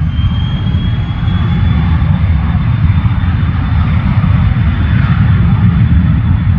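Cessna 560XL Citation Excel's twin Pratt & Whitney Canada PW545A turbofan jet engines running loud, with a thin whine that rises in the first second and then holds steady over a heavy low rumble.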